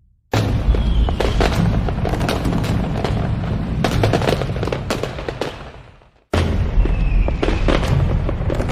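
Aerial fireworks display: a dense volley of booms and crackling bursts that starts abruptly, fades out about six seconds in, then cuts straight to another dense volley.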